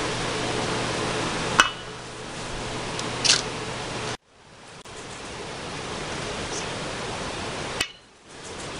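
Steady hiss of room tone, broken by two sharp clicks and a brief rustle; the sound cuts out abruptly twice and comes back.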